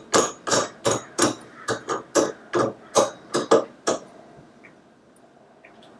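The metal pegboard's desk clamp screws being tightened by hand: a rapid, regular series of sharp strokes, about three a second, that stops about four seconds in.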